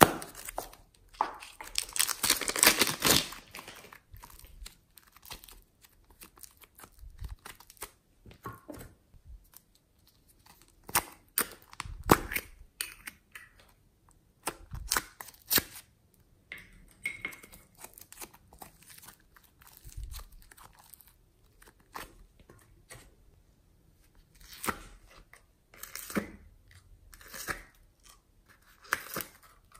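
Plastic of a clay piping bag crinkling and tearing in a dense burst a second or two in, the loudest part. After it come scattered short clicks, crackles and squishes as foam slime and small plastic containers are handled and opened.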